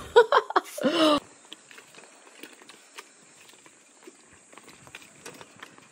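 Faint, irregular clicks and rattles from a bicycle ridden over a bumpy dirt path, its wire front basket and frame jostling.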